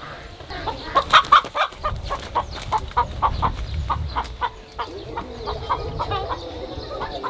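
Chicken clucking: a long run of short, repeated clucks, about three to four a second.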